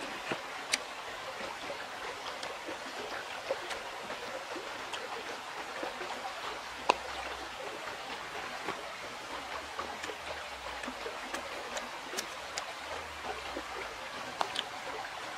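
Steady rush of a flowing river, with scattered sharp clicks and smacks close by from eating and pulling apart ripe jackfruit bulbs. The loudest click comes about seven seconds in.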